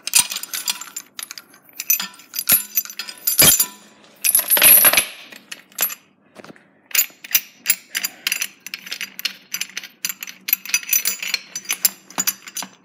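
Steel lifting chain and shackles clinking and rattling as they are handled, with a louder clatter of chain about four seconds in.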